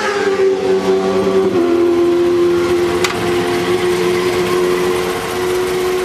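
Sportbike engine running with a steady, whining note; its pitch drops quickly in the first second and then holds level. A single sharp click about three seconds in.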